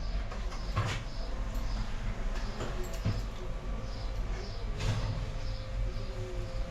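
An oven door being opened and a clay roasting pan being handled, giving a few scattered knocks and scrapes over a steady low hum.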